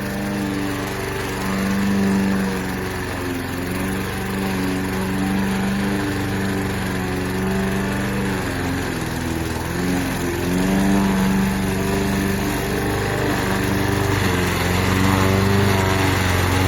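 PowerSmart push mower's 144cc single-cylinder four-stroke engine running steadily, its pitch dipping and wavering briefly about halfway through.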